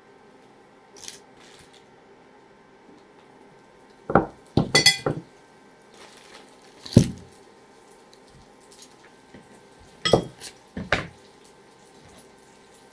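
Kitchen utensils and dishes clattering: a cluster of knocks and clinks about four seconds in, one sharp knock about seven seconds in, and another pair of clattering knocks around ten to eleven seconds.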